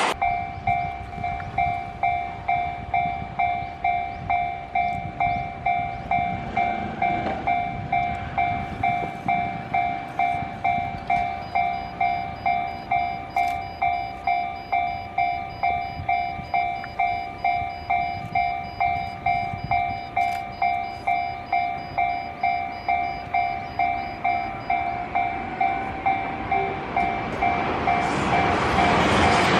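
Japanese railway level crossing warning bell ringing steadily, an electronic ding repeated about twice a second. Near the end the rumble of an approaching train rises underneath it.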